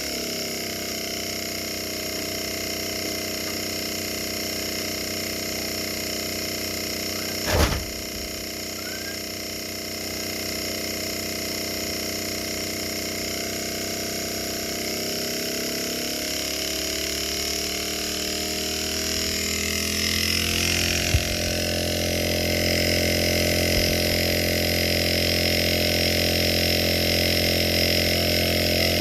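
Refrigerator inverter compressor running on an inverter drive: a steady motor hum layered with a high electronic whine. A sharp click comes about a third of the way in, and partway through the pitch of some tones rises as the speed changes, after which it runs a little louder and fuller.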